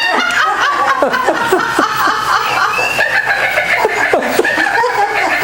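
Hearty laughter: a rapid run of short, falling ha-ha bursts.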